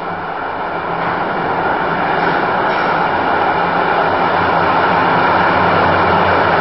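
Tram approaching through a tunnel on the neighbouring track and drawing alongside, a steady rumble that grows louder throughout.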